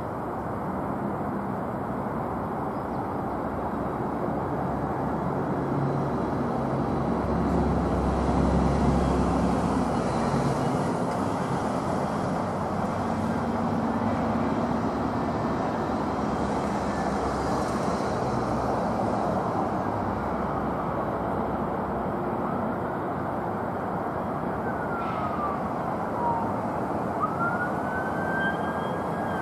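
Boeing 767 jet airliner on final approach, a steady rumble of its engines that swells about a third of the way through. Near the end a siren wails, its pitch falling and rising.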